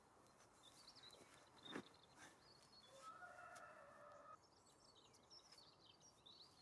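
Near silence outdoors with faint birds chirping, a longer steady call about three seconds in, and one faint knock a little under two seconds in.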